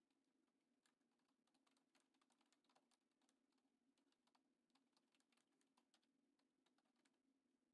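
Near silence: a faint low hum with many very faint, irregular sharp clicks.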